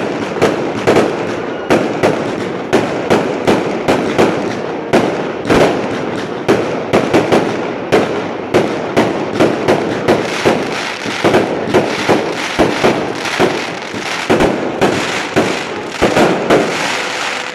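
Fireworks display: a rapid, unbroken series of aerial shell bursts, a few loud bangs a second over a steady crackle.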